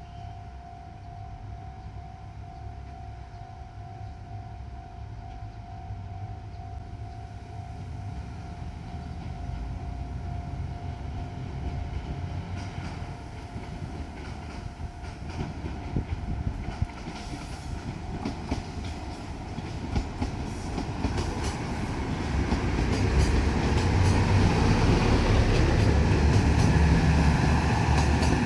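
Diesel multiple unit drawing closer and getting steadily louder, its diesel engine rumbling and its wheels clicking over the rail joints as it nears, loudest near the end.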